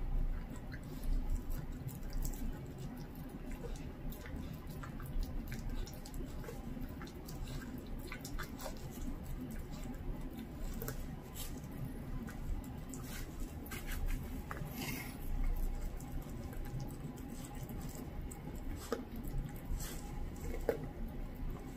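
A dachshund tearing at and chewing a whole raw duck: irregular wet clicks and smacks of teeth on raw meat and skin.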